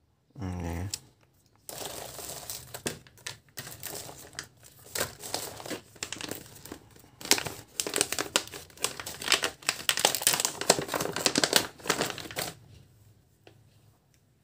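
Clear plastic bag crinkling and tearing as a stuffed fish catnip toy is unwrapped, a dense run of rustles and sharp crackles that stops about two seconds before the end. A short low hum comes just before it, near the start.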